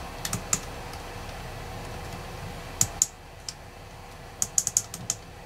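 Push buttons on a Victron CCGX monitor clicking as they are pressed to step through its menus: irregular sharp clicks, a few about half a second in, two near the middle and a quick run of about six near the end.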